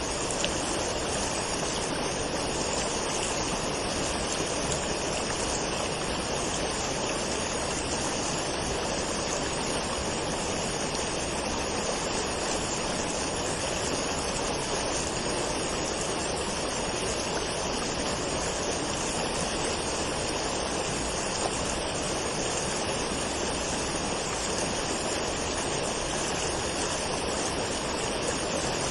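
Waterfall: falling water splashing and rushing in a steady, unbroken stream.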